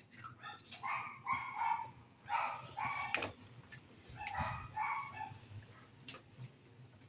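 A small dog yapping in three quick bursts of short high-pitched barks, with a couple of sharp clicks in between.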